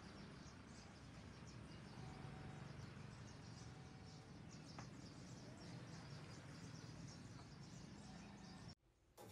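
Faint outdoor background noise: a steady low hum with faint, evenly repeating high chirps like insects, cutting off abruptly shortly before the end.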